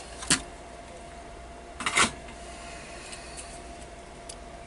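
Two sharp clicks about a second and a half apart, the second louder, then a faint tick, over a faint steady electrical hum.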